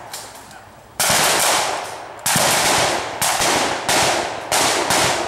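Blank gunfire from reenactors' rifles: after about a second of lull, a string of roughly seven single shots at uneven intervals, each loud and trailing off in a long echo through the woods.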